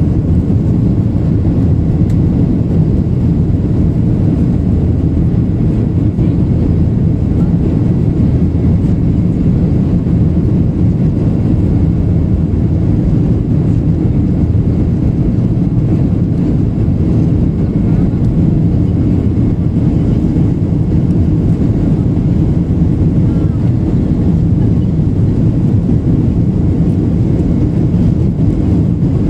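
Cabin noise of a Boeing 737-800 climbing after takeoff: its CFM56-7B turbofans and the rushing airflow heard from a seat over the wing, a loud, steady low rumble with no breaks.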